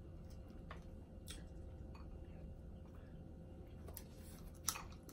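Quiet eating sounds: a few soft, scattered clicks and ticks from handling seafood shells and chewing, with one sharper click near the end.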